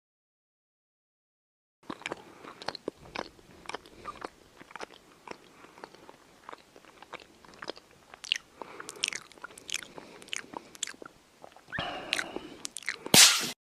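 Close-up crunching: a dense, irregular run of crisp clicks and crackles starting about two seconds in, growing louder near the end and closing with a brief loud burst.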